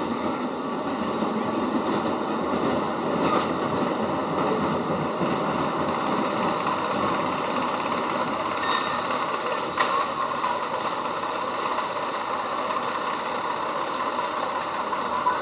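Small caterpillar-themed children's roller coaster train running along its steel track, a steady rolling noise with a few faint clicks.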